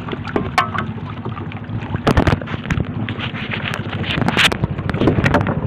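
Small fishing boat's steady low rumble with wind on the microphone, and a few sharp knocks about two seconds in and again past the middle as a fishing net is handled over the side.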